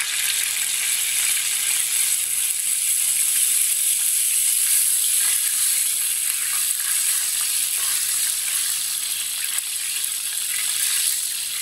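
Whole cumin seeds, coriander seeds and cinnamon sizzling steadily in hot oil in a frying pan as the spices are roasted. A wooden spatula stirs them through the oil.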